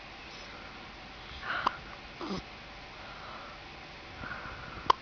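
Penguins making a few short hiccup sounds, one of them a quick note that slides down in pitch, with a sharp click-like hiccup near the end.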